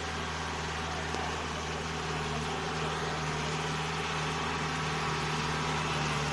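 Off-road vehicle's engine running at a steady speed: an even low hum over a haze of road noise.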